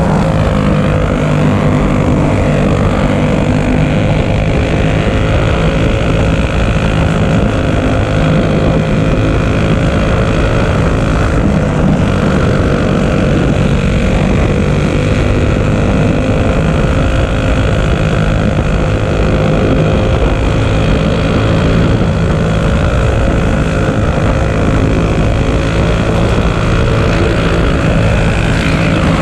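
Racing kart's single-cylinder four-stroke clone engine running at high, nearly constant revs under racing throttle, recorded onboard. The pitch wavers only slightly through the turns.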